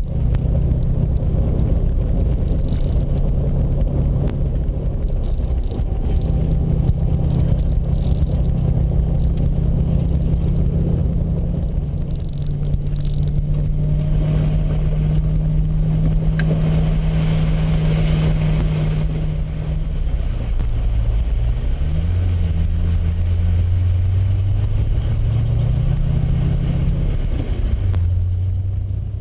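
Car engine running at driving speed, heard from inside the cabin over steady tyre rumble on a gravel road. The engine note shifts several times, dipping and climbing again in the second half, with a stretch of louder road hiss in the middle.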